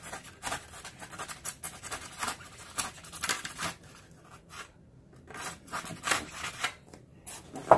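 A knife blade scratching as it is drawn through pink extruded foam board in short, repeated strokes, scoring the foam deep so the piece will snap off along the cut. One louder, short sound comes right at the end.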